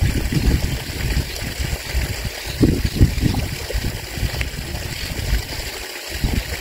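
Wind buffeting the microphone: an uneven, gusting low rumble over a steady outdoor hiss.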